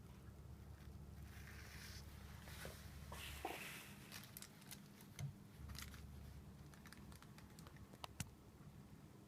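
Faint handling noise: two soft rustles and a scattered run of small clicks over a low steady hum.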